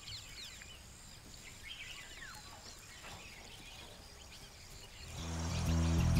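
Wild birds calling with short chirps and whistles over a faint outdoor hiss. About five seconds in, background music with low held notes fades up and becomes the loudest sound.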